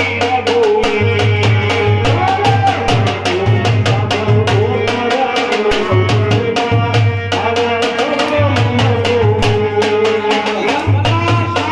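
Live garba music: a dhol beaten with a stick keeps a fast, steady beat over an electronic keyboard's bass and melody line.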